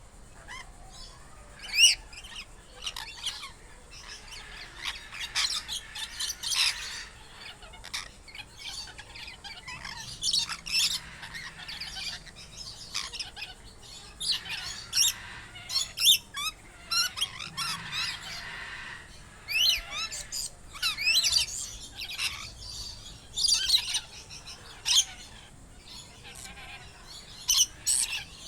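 Parrot calls: a long run of short, sharp squawks and chirps at irregular intervals, with a few much louder squawks standing out.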